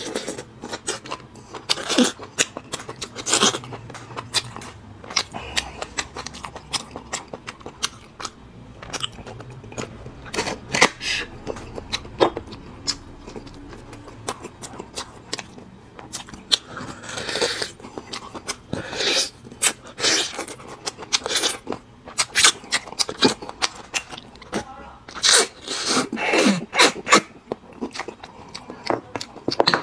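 Close-miked eating sounds: sucking and slurping marrow out of braised bone pieces, with chewing and wet lip smacks in irregular clicks, busiest in the second half.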